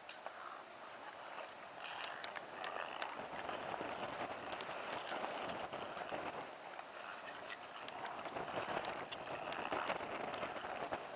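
Short-track speed-skate blades hissing and scraping on the ice as skaters stride around the rink, with scattered small clicks of blades.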